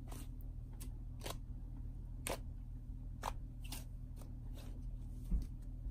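Silk Slimers' Pink Watermelon Cloud slime being squeezed, kneaded and pressed by hand on a countertop, giving irregular soft crackles and snaps, with a dull bump about five seconds in.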